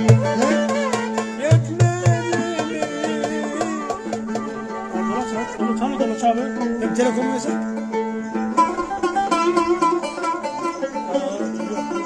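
Live Turkish folk music: a cümbüş plucked and strummed while a clarinet plays a winding, ornamented melody over a steady low drone. There are a few low thumps in the first couple of seconds.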